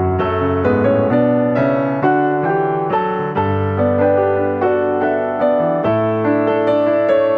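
Background music: a gentle piano melody over sustained low bass notes.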